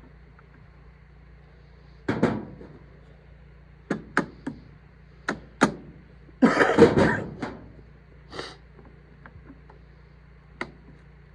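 Metal clanks and knocks of wrenches and baler knotter parts being handled, a series of separate sharp knocks with a longer, louder clatter about six to seven seconds in.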